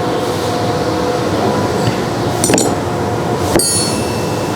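Metal parts of a hydraulic intensifier's end cap being handled: two sharp metallic clinks, the second louder with a brief ring, over a steady hum.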